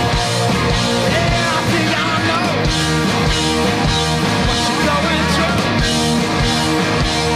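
Live rock band playing loud and steady: drums with crashing cymbals, electric guitars and bass, with a male lead singer.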